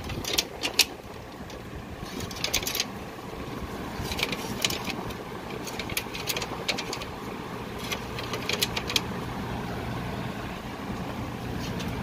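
1953 Philco-York console air conditioner running with a steady hum and rush of air. Its loose front grille panel clatters in several short bursts of clicks and rattles as it is handled.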